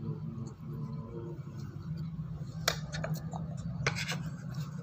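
Metal spoon scraping and clicking against a plastic plate, with a few sharp clicks past the halfway point, over a steady low hum.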